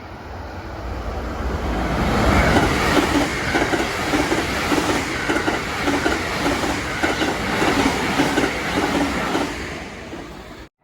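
Train wheels clattering over rail joints as a train passes, a regular clickety-clack about twice a second. It builds up over the first two seconds and fades before cutting off abruptly near the end.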